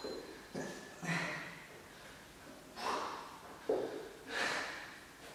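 A man breathing hard and forcefully from the exertion of doing sit-up crunches, with about five sharp breaths a second or so apart.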